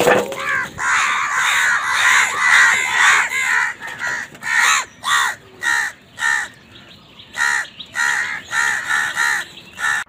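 A flock of house crows cawing over food, many calls overlapping for the first few seconds, then separate caws in quick succession with a brief lull about seven seconds in.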